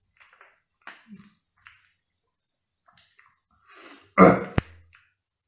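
Close-up mouth sounds of someone eating spicy crawfish: small scattered smacks and clicks, then one loud mouth noise about four seconds in that ends in a sharp click.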